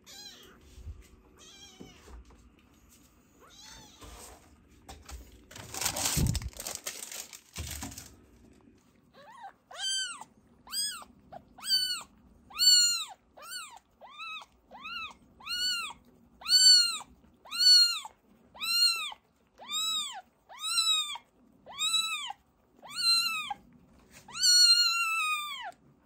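Very young kitten mewing over and over, about one high mew every two-thirds of a second, each rising then falling in pitch, the last one drawn out. It is being held and rubbed under the tail with a tissue to make it toilet. Some rustling from handling comes before the mewing starts.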